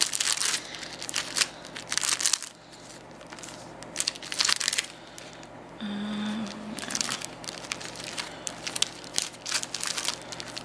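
Clear plastic sleeves and sticker sheets crinkling and rustling as they are handled and shuffled, in repeated bursts.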